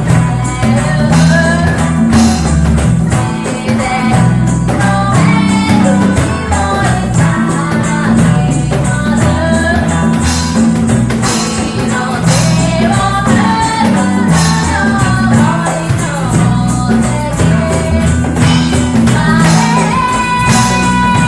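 A live band playing a reggae song with sung vocals over a bass line and steady percussion.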